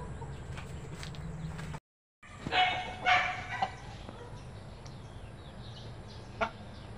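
Three short, loud animal calls in quick succession, a little over two seconds in, just after the sound drops out for a moment.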